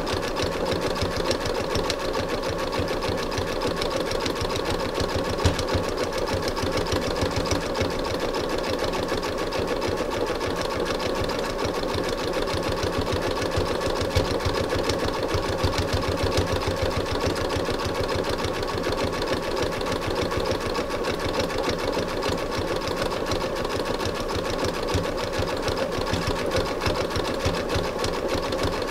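Sewing machine running steadily at an even pace, its needle stitching through a thick fabric-covered rope coil to sew a reinforcing line around the base of a rope basket.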